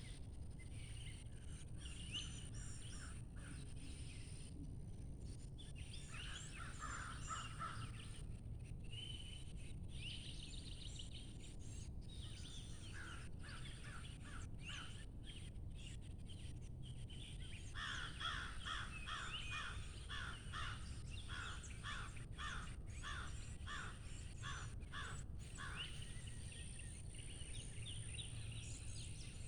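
Wild birds calling and singing outdoors, with a quick run of repeated short notes, two or three a second, from about 18 to 25 seconds in. Underneath are a low steady rumble and a thin steady high tone.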